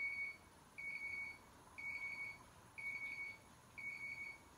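Electronic alarm beeping: a single high-pitched tone about half a second long, repeating steadily once a second.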